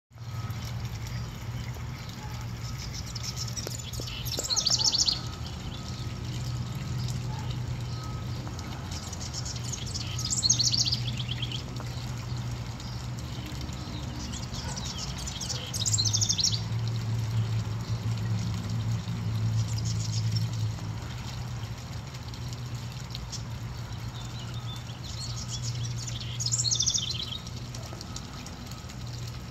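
Male house wren singing its bubbly, rapid trilled song to attract a mate: five songs, each about two seconds long, repeated every five or six seconds. A steady low hum runs underneath.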